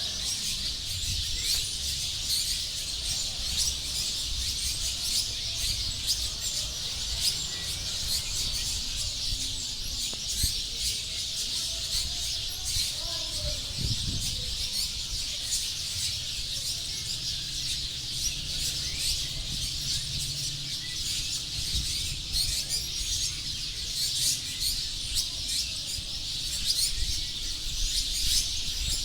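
A large flock of small birds chirping and chattering densely and without pause as they gather to roost at dusk, with a low rumble underneath.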